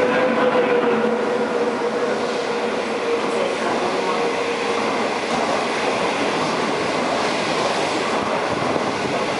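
Train passing through a station without stopping: an SS8 electric locomotive hauling the Guangzhou–Kowloon through train, its wheels and rail noise a continuous rumble that fills out from about four seconds in.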